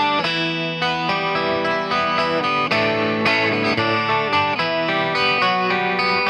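Electric 12-string guitar playing bright, jangling chords and picked notes.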